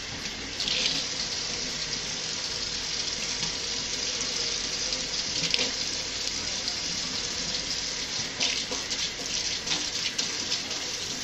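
Kitchen faucet running steadily into a stainless steel sink, the stream splashing over hair and hands being rinsed under it.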